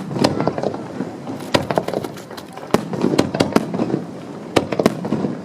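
Aerial fireworks going off in an irregular string of sharp bangs and crackling reports, several coming in quick clusters of three or four.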